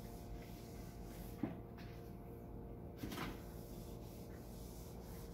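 Whiteboard being wiped with an eraser and touched with a marker: a sharp tap about a second and a half in and a short rub about three seconds in, over a steady low hum.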